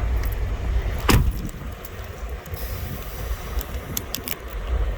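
Steady low rumble of an idling vehicle engine heard from inside the cab, with one sharp knock about a second in and a few light ticks near the end.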